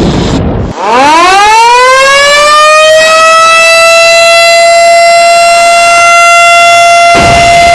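Siren winding down and dropping out briefly, then winding back up in pitch about a second in and settling into a loud, steady high tone. This is the commemorative siren sounded for Indonesia's Independence Day. A low noise joins near the end.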